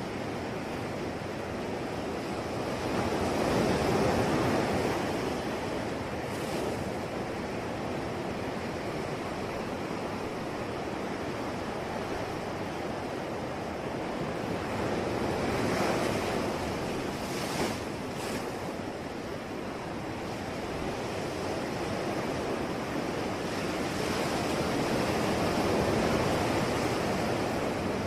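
Sea waves washing onto the shore, the surf swelling and ebbing three times, about ten seconds apart.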